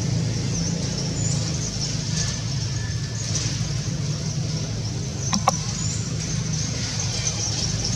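A steady low motor hum, with faint high chirping above it and one short sharp click about five and a half seconds in.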